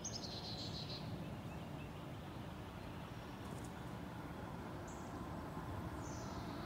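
Outdoor ambience: a steady low background rumble with a few faint high bird chirps, at the start, around five seconds in and near the end.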